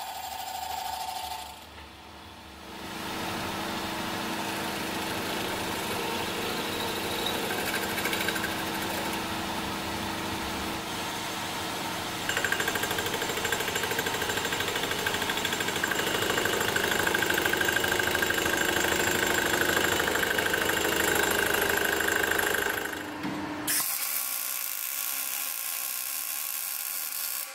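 A milling machine's end mill cutting a slot through a metal tube clamped in a vise: a steady machining noise that grows louder about halfway through, with a high whine. Near the end it gives way to the even hiss of MIG welding.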